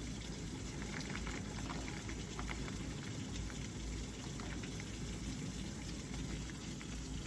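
Super heavy rain pouring steadily, with scattered small drop ticks through it.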